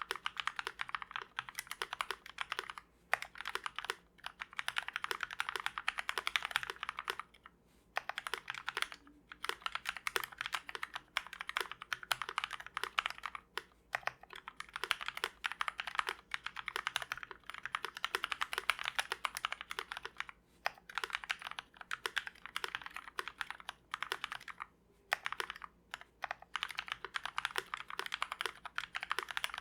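Continuous fast typing on a GMMK Fullsize mechanical keyboard with lubed Kailh Speed Silver linear switches and PBT keycaps: rapid key clacks in bursts, with brief pauses every few seconds.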